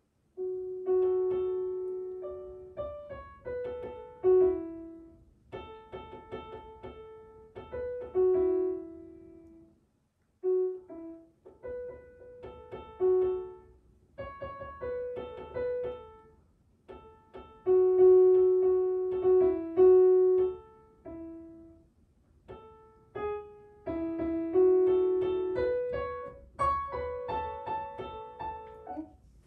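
Solo piano music: a melody in short phrases, with two brief pauses about a third and two-thirds of the way through.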